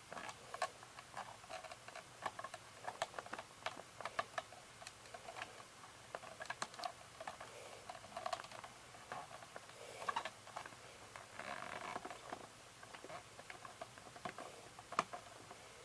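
Faint, scattered clicks and scratches of fingers picking at a sticker on a plastic VHS cassette shell to peel it off, with a short scraping rustle about eleven seconds in.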